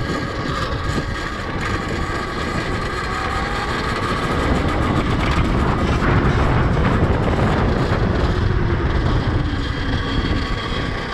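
Custom electric pit bike with a QS Motor 2000 W mid-drive motor and chain drive, under way on pavement. Its steady whine sits under a rushing noise that grows louder about halfway through as it picks up speed.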